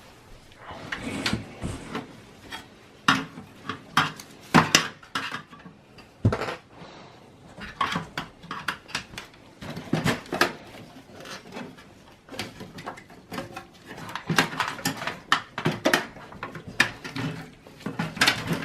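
Flathead screwdriver working the retaining clip of a plastic fan shroud inside a Dell OptiPlex 780 mini tower's chassis: irregular clicks, taps and knocks of metal against plastic and sheet metal.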